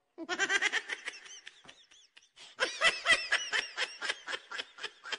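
High-pitched laughter in rapid ha-ha pulses, with a brief break about two seconds in and then a louder run of laughing.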